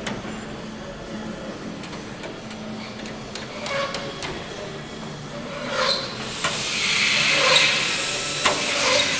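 Metalworking in an aircraft workshop: scattered light clicks and knocks on metal, then from about six seconds in a steady hiss joins and the sound grows louder.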